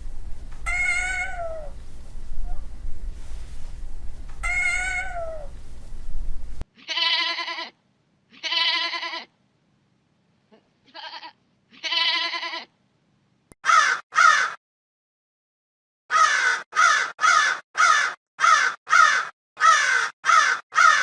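A cat meowing twice, each meow falling at the end. After a sudden cut, an animal gives a series of harsh cawing calls, first spaced out, then a quick run of about nine near the end.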